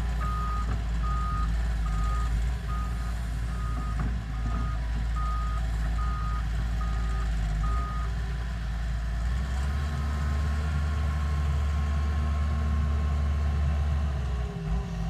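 Reversing alarm on a heavy machine beeping at a steady pitch about every 0.7 seconds over its running diesel engine. The beeps stop about eight seconds in, and soon after the engine's low rumble grows louder for several seconds.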